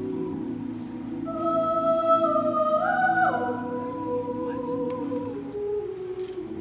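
Mixed choir singing a cappella, holding long chords in close harmony. A high soprano line comes in about a second in, steps up, drops to a lower note and holds it with very steady pitch.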